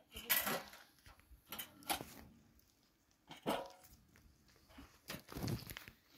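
A dog barking several times, single barks spaced a second or two apart.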